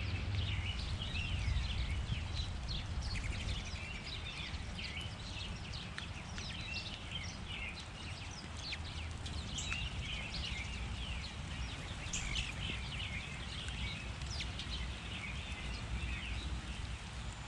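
Many small birds chirping, with short calls coming thick and overlapping, over a steady low background rumble.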